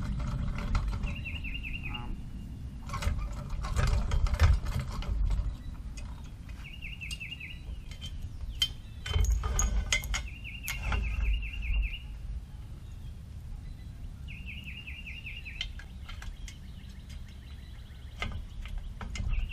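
A bird sings short, rapid chirping phrases, four times over. In between come irregular clicks and clatters from a rope hoist's pulleys and hardware as its line is pulled through by hand.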